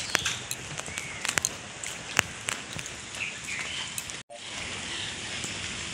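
Steady rain falling, with many sharp clicks of drops and a few short bird chirps. The sound cuts out for an instant about four seconds in.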